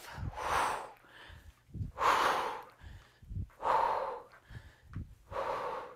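A woman breathing out hard four times in a steady rhythm, once with each kettlebell swing, each breath about half a second long and coming roughly every second and a half to two seconds.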